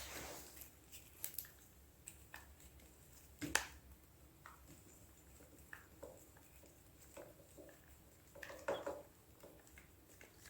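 Faint, scattered clicks and light knocks of a hand tool on small bolts and plastic parts as a snowmobile's throttle lever housing is unscrewed. The sharpest knock comes about three and a half seconds in, and a few more follow near the end.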